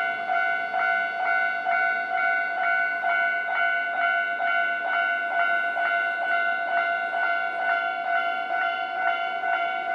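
Japanese railway level-crossing alarm ringing, a pitched electronic clang repeating a little over twice a second, the warning that a train is approaching.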